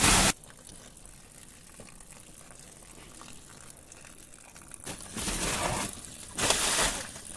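Charcoal poured into an earthing pit, landing in three short rushes: a brief one at the start, then two of about a second each near the end.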